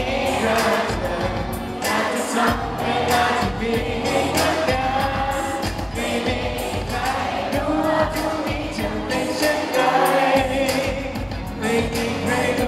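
A male pop singer singing live into a microphone over a backing track, amplified through a PA system.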